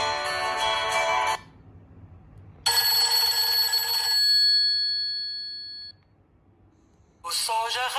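Nokia 7230 ringtones playing one after another: a melodic tune ends about a second in, then after a short pause a bright chime sounds and rings out slowly, and after another pause a new tune begins near the end.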